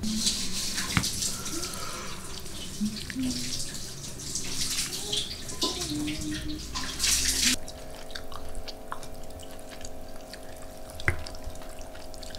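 Water running for about seven and a half seconds, then cutting off suddenly, after which a faint steady hum remains.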